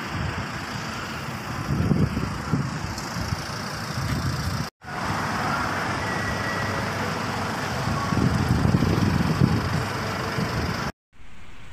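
Road-vehicle engines and traffic noise in an open car park, swelling into a louder low rumble about two seconds in and again around eight seconds in. The sound cuts out briefly twice.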